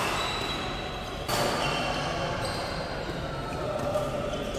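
Badminton doubles play: sneakers squeaking on the court floor in short high chirps, and a racket striking the shuttlecock with a sharp crack about four seconds in.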